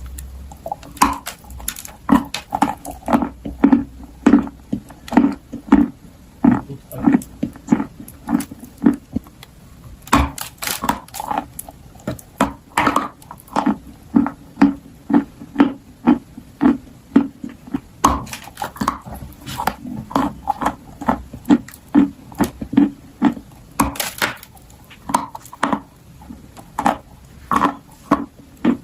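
Close-up crunching and chewing of dry clay and chalk dipped in clay paste: crisp cracks in quick succession over a steady chewing rhythm.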